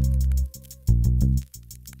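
Background instrumental music: two deep bass notes, one at the start and one about a second in, over a light, regular ticking beat.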